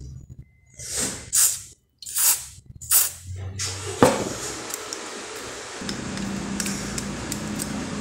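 Aerosol carburetor cleaner sprayed in several short bursts onto the bushing of a refrigerator evaporator fan motor to wash out scale. A sharp click follows about four seconds in, then a steady low hiss.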